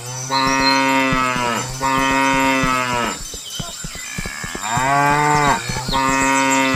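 Cattle mooing: four long, drawn-out moos in a row, with a longer pause after the second.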